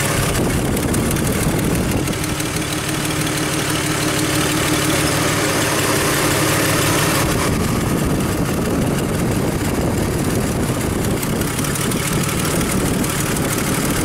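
GM Trailblazer engine idling steadily with a constant misfire on cylinder number two, which the mechanic also takes for a massive exhaust manifold leak.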